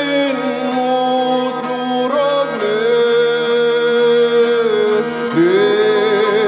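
Music: long held, chant-like tones over a steady low drone, with a slide up in pitch about five seconds in.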